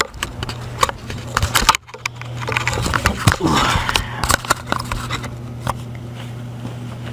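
Camera handling noise: a run of knocks and rustling clicks as the camera is moved, then a few light taps and scrapes as a hand touches the TV's sheet-metal chassis, over a steady low hum that carries on to the end.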